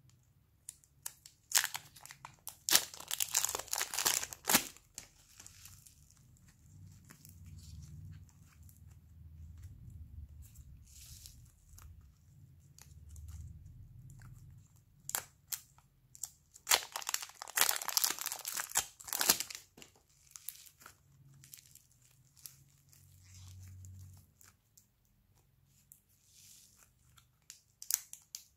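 Clear plastic wrapping crinkling and tearing as it is peeled off blocks of soft modelling clay. There are two loud bursts of dense crackling, a couple of seconds in and again after about sixteen seconds, with scattered single crackles and soft low handling noise between them.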